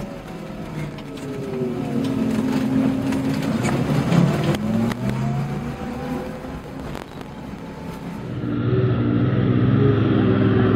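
A bus engine heard from the driver's cab, its pitch rising and falling with the throttle, with a couple of sharp knocks along the way. About eight and a half seconds in, it gives way to a louder, steady heavy truck engine.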